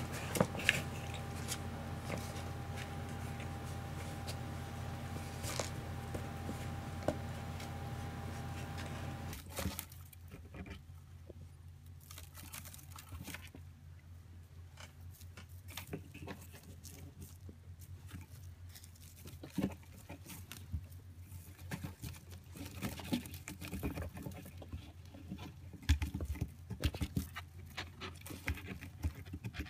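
A steady low hum with a few light knocks, then kittens' claws scratching and tapping at a cardboard box, in quick irregular scrapes and taps.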